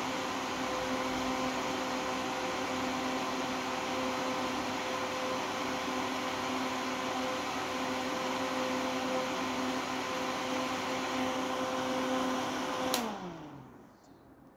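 Vortice Punto wall exhaust fan running steadily, an even whoosh of air with a motor hum. Near the end a click cuts its power and it winds down, the hum falling in pitch as the blades slow.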